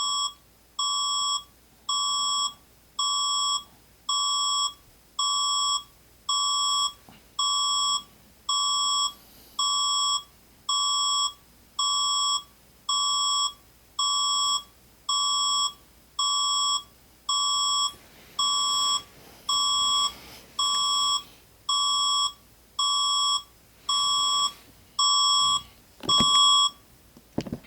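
Emergency alert tone given as the Philippines' alarm: a single high electronic beep repeated evenly a little faster than once a second, about thirty beeps in a row, which stop shortly before the end.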